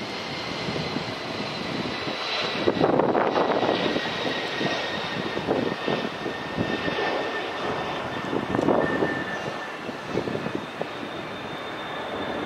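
Boeing 777-300ER's twin GE90 turbofans on final approach over the runway: a steady high whine over a rushing roar, the whine sagging slightly in pitch in the second half. Louder gusty rushing swells come about three and nine seconds in.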